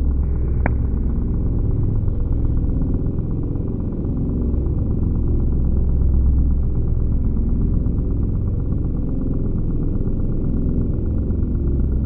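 Low, droning background music with a deep, steady rumble and a brief high ping about half a second in.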